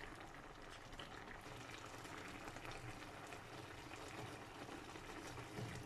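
Coconut-milk sauce with salmon and spinach simmering in a pot, a faint, steady bubbling.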